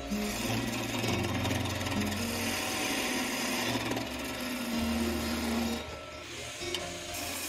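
Parting tool cutting into a spinning poplar blank on a wood lathe: a steady rasping scrape that fades about six seconds in.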